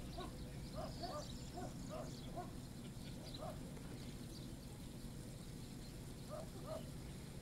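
Faint short animal calls, repeated irregularly: a run of them in the first few seconds and a pair near the end, with a few fainter high chirps, over a low steady hum.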